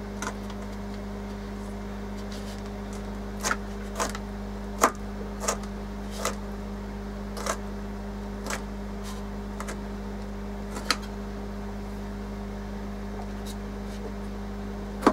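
Chef's knife dicing a Roma tomato on a plastic cutting board: about a dozen sharp, irregularly spaced taps of the blade on the board, over a steady low hum.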